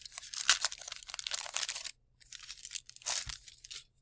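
Paper wrapper of a 1990 Score hockey card pack being torn open and crumpled, a crisp crinkling crackle in two spells with a short pause about halfway.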